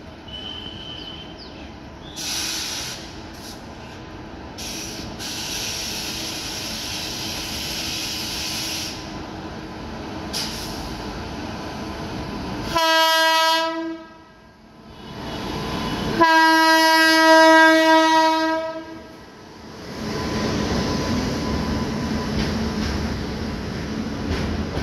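WAG-7 electric locomotive hauling a goods train through the station, its running noise growing as it nears. It sounds its horn twice about halfway through, first a short blast and then a longer one. Then the loaded goods wagons roll past with a steady rumble.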